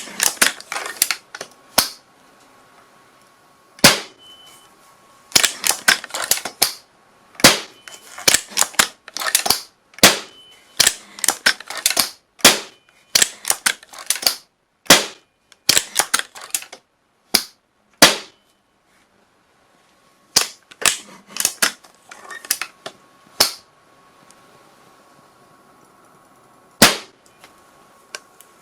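Gunshot sound effects: a run of sharp, thin cracks, some single and some in quick bursts of several, with a short silent pause about two-thirds of the way through.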